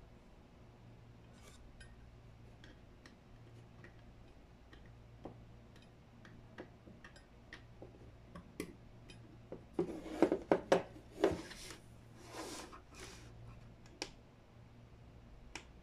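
Scattered clicks of fingers pressing buttons and working the controls of a small V8 sound card, picked up by the condenser microphone, with a burst of louder clicks and handling rustle about two-thirds of the way through. A faint steady low hum lies underneath.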